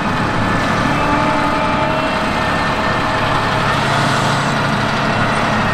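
John Deere 8370RT tractor's diesel engine running steadily under ploughing load.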